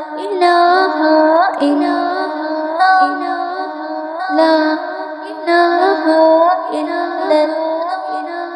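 A high-pitched voice singing a naat melody in a series of stepped, rising phrases.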